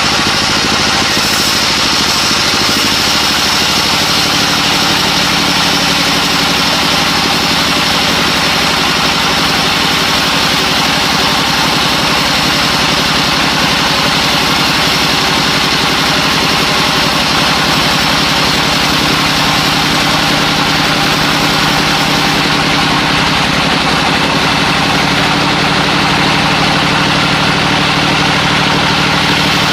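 An engine running steadily at one constant speed, with an even hiss over its hum.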